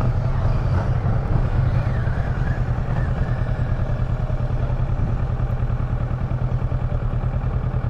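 Kawasaki Versys 650's parallel-twin engine idling steadily with a fast, even throb.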